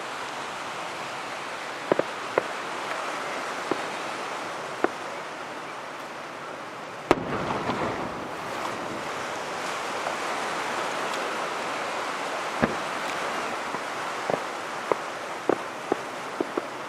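Fireworks shells bursting with sharp bangs at uneven intervals, the loudest about seven seconds in and a cluster of smaller pops near the end, over a steady rushing of surf.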